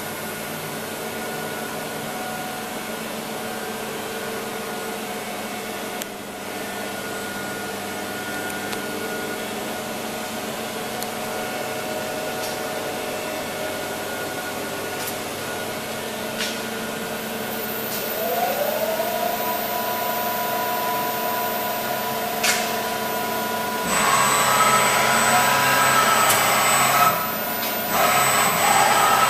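KNUTH KB 1000 A CNC knee-type milling machine running under power: a steady motor hum. About two-thirds of the way through, a whine rises in pitch and then holds as the machine speeds up. Near the end it grows louder with a hiss, with a brief dip shortly before the end.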